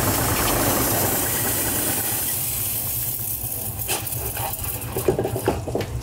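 Engine idling steadily while water sprays, the spray hiss fading out about two to three seconds in; a few clicks and knocks follow over the idle.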